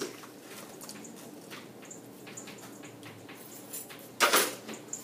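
Chalk on a chalkboard: faint taps and scratches as a diagram is drawn, with one louder, harsher scrape about four seconds in.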